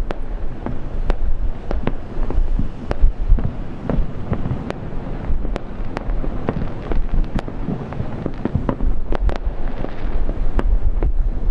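Aerial fireworks shells bursting in quick, irregular succession: many sharp bangs over a continuous low rumble.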